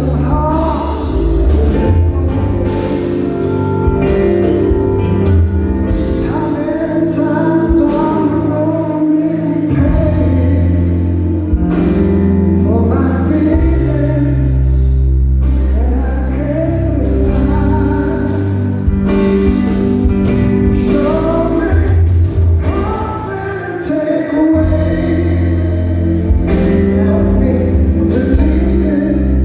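Live rock band playing a slow song, a man singing the lead vocal over sustained guitar, bass and drums.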